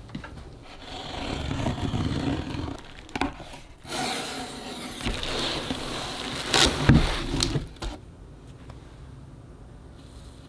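Scissors scraping through packing tape on a cardboard shipping box, then the cardboard flaps being pulled open and bubble wrap rustling. A few sharp knocks come in between, the loudest a little past the middle, and the handling is quieter near the end.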